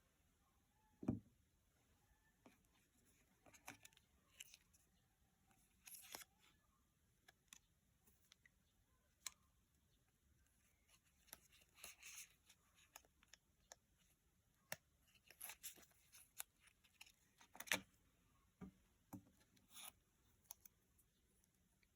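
Faint, scattered handling sounds of a phone box and its packaging: light taps, clicks and short paper or card rustles. There is a soft thump about a second in and another about three-quarters of the way through.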